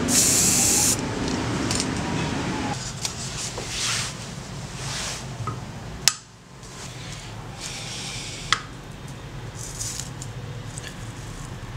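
An aerosol spray can hisses in one burst that ends about a second in. After that come quieter sounds of metal scissors being handled on a wooden block, with a sharp click about six seconds in and a lighter one a couple of seconds later.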